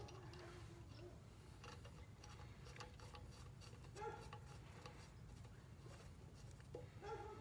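Near silence with scattered faint clicks and taps of small metal parts being handled, as sprocket bolts and nuts are fitted by hand; slightly louder taps about four seconds in and near the end.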